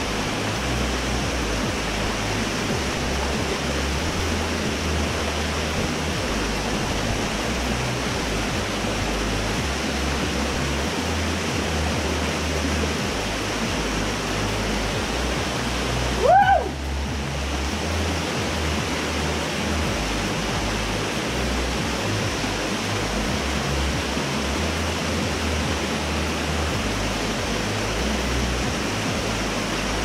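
Steady rush of a small waterfall pouring into a rock pool. About halfway through there is one brief high-pitched cry that rises and falls.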